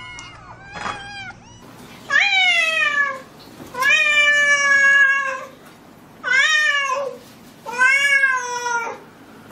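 A cat meowing loudly and repeatedly: after a faint meow near the start come four long, drawn-out meows, each sliding up in pitch and then gliding slowly down, with short pauses between them.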